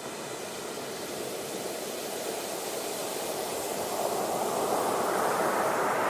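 Ocean-wave water noise, a steady wash that swells louder and brighter over the last few seconds.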